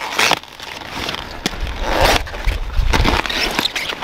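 Cauliflower leaves and stalk rustling and crackling in a few bursts as hands twist and pull at a large cauliflower head, trying to snap the tough stem by hand.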